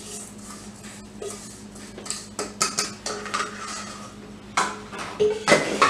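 Stainless steel mixing bowl knocking and scraping against a glass pie dish as crumbs are tipped out: a string of light clinks and knocks, then louder clatters near the end as the bowl, with a spoon in it, is set down on the counter.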